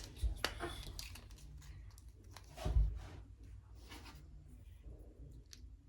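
Miniature plastic toy pieces being handled: a few light clicks and taps, with a soft low knock about three seconds in.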